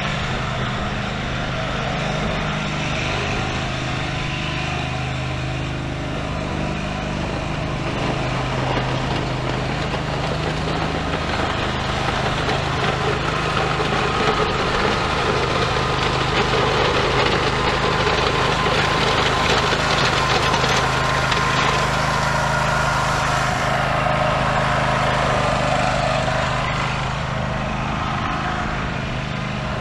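Scag Tiger Cat zero-turn mower's engine running steadily while the mower pushes dirt with a front blade. It grows louder for a while in the middle as the mower comes closer, then eases off again.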